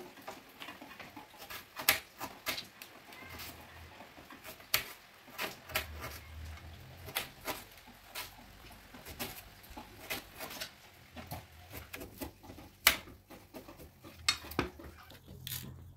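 Irregular sharp clicks and taps of a small kitchen knife and shallots knocking against a steel plate while shallots and a tomato are cut by hand.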